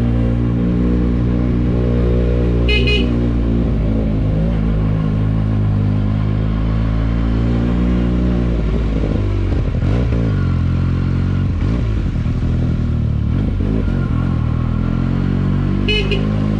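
Benelli TNT 300 motorcycle's parallel-twin engine through its stock exhaust, running under way; its note falls and rises again around the middle as the throttle is eased off and reopened. The horn gives two short beeps, about three seconds in and near the end.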